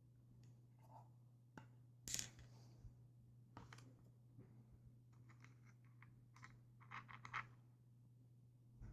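Faint handling noises of paper-and-cardboard rifle parts being taken apart: scattered small clicks and scrapes, the sharpest about two seconds in and a quick run of clicks near the end, over a steady low hum.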